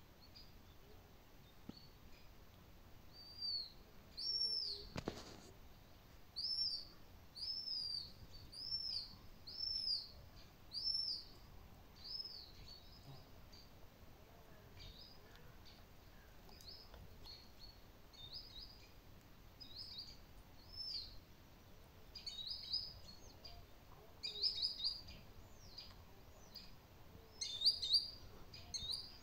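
Marsh harrier calling: a long series of short, high whistled notes, each rising then falling, about one a second. The notes fade for a while in the middle, and the loudest come in quick clusters near the end.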